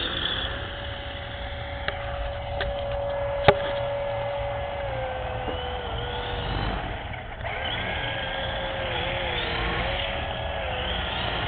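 Small electric motor and rotors of a Black Cat three-channel RC helicopter whirring with a steady whine that dips in pitch a few times, with a few sharp clicks in the first few seconds. The rotors spin but give too little lift to fly.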